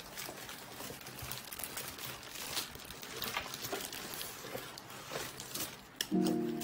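Inflatable air-column plastic packaging crinkling and crackling irregularly as it is handled and slid off a cardboard box. Background music starts near the end.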